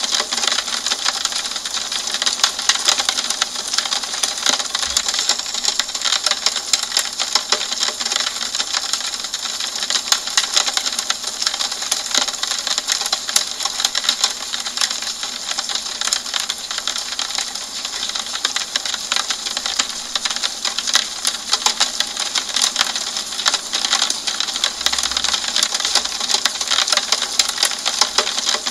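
Steady rain on a window pane: a dense, even stream of small drops tapping on the glass.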